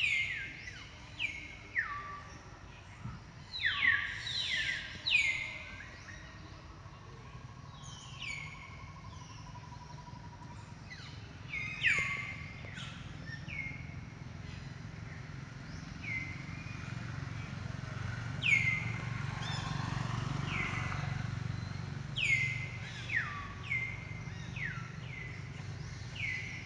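Short high chirping calls, each falling quickly in pitch, repeated in quick runs throughout, over a low steady rumble that swells for a few seconds past the middle.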